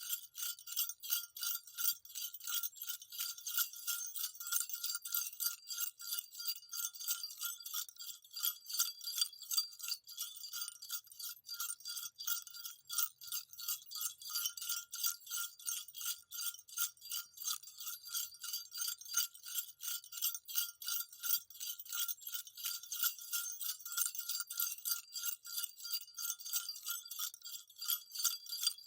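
Small jingle bells shaken continuously in a quick, even rhythm, several bright metallic jingles a second.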